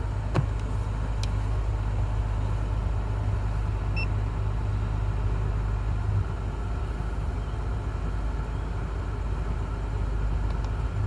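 Car engine idling steadily with a low hum. There is a sharp click just after the start and a short high electronic beep about four seconds in.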